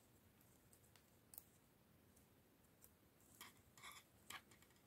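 Faint, sparse clicks of knitting needles tapping together as stitches are worked: a couple of single clicks in the first half, then a short cluster of clicks about three and a half seconds in.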